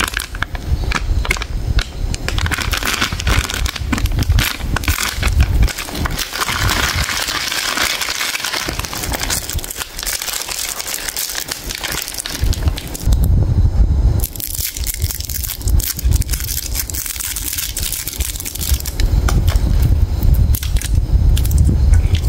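Plastic sweets packaging crackling and crinkling as a bag of Kismi Gold toffees is handled, opened and rummaged in, then a single toffee's wrapper is pulled open near the end.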